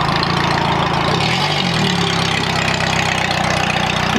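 Car engine idling with no exhaust system, the exhaust dumping straight out at the engine, with a brief rev about a second and a half in.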